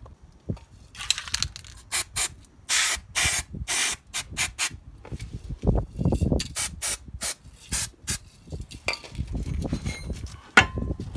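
Aerosol spray can let off in a series of short hisses onto a car driveshaft's splined end, then the rustle and rub of a gloved hand working over the splines.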